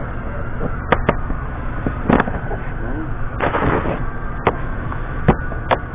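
About six sharp clicks and knocks of hand work on a pickup's front grille and bumper trim, with a longer scraping rustle about three and a half seconds in, over a low steady background hum.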